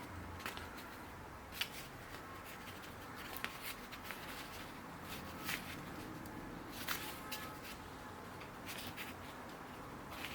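Light handling noises: irregular small clicks and rustles, a few seconds apart, over a faint steady hiss.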